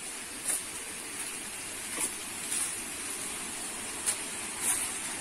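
Footsteps crunching on dry leaves and dirt, a step every second or so, over the steady rush of a nearby waterfall.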